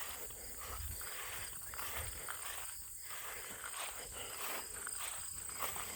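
Faint footsteps of a person walking outdoors, about one step a second, over a steady thin high-pitched hum.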